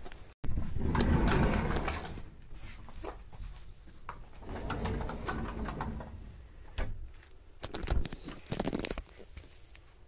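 Domestic cat purring close to the microphone while being stroked, a steady fine rumble that swells and fades, mixed with fur rubbing and handling noise; a few sharp clicks come near the end.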